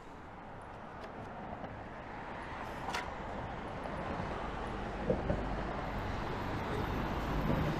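Road traffic noise that grows steadily louder as a vehicle approaches, with a single light click about three seconds in.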